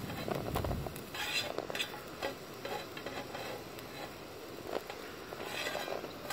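Bacon sizzling and frying in a pan on a portable gas camping stove, with light clicks and scrapes of a metal fork turning and lifting the rashers. A brief low rumble near the start.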